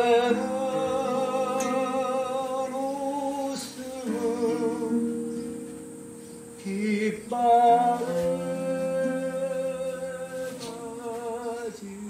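A man singing a slow song in Korean, accompanying himself on acoustic guitar. He holds long notes with vibrato and breaks briefly between phrases about four and seven seconds in.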